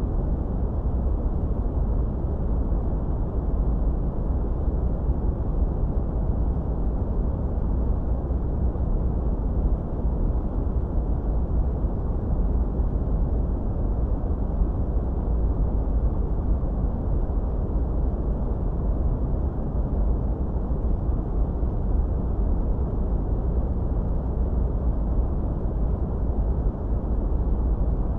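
Steady, unchanging generated noise for tinnitus masking: a deep, dark rush heavy in the bass, with almost no high hiss.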